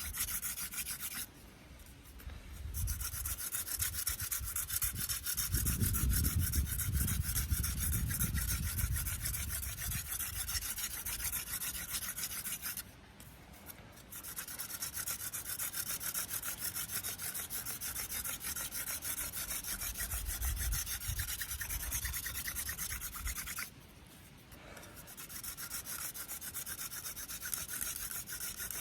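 Hand-drill friction fire: a cattail spindle spun fast between the palms, grinding into a velvetleaf stem hearth board with a continuous fast scratchy rubbing. It stops briefly three times.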